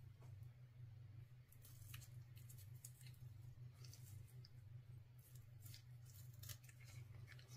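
Near silence: a steady low hum with faint scattered small clicks, in two clusters, one about a couple of seconds in and one near the end.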